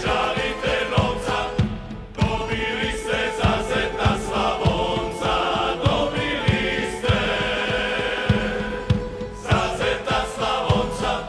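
Folk choir of men's and women's voices singing a Croatian folk song, with a steady low beat under it.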